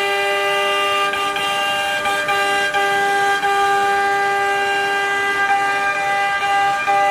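CNC router spindle running at high speed, a steady high-pitched whine with a few brief dips in tone as the bit works the wood.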